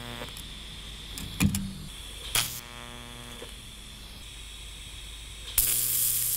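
TIG welding arc on stainless steel tubing, buzzing in short tack welds: one stops just after the start, a brief one comes about two and a half seconds in, and a louder one runs from about five and a half seconds on. A single knock comes about one and a half seconds in, over a steady high whine.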